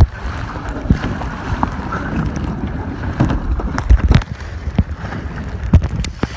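Strong wind buffeting the microphone, a heavy low rumble with irregular knocks and thumps throughout.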